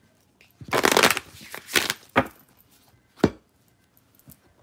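A deck of tarot cards being shuffled in the hands, in several short bursts, then one sharp tap a little after three seconds in as the deck meets the table.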